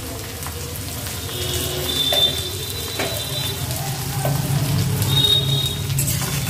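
Chopped carrots and yardlong beans sizzling gently in hot oil and ghee in a metal kadai over a very low gas flame, with the odd light knock of a spatula against the pan.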